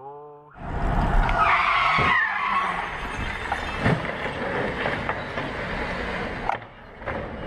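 Car tyres squealing in a skid for a couple of seconds, followed by sharp thuds, then ongoing road noise.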